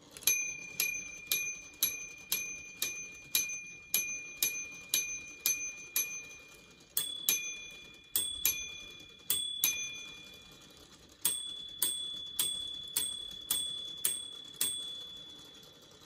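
3D-printed minute repeater mechanism striking its two bells: about a dozen strikes on the lower bell, then three alternating low-high double strikes, then about seven strikes on the higher bell, each ringing and fading. This is the repeater's chiming sequence of hours, quarters and minutes.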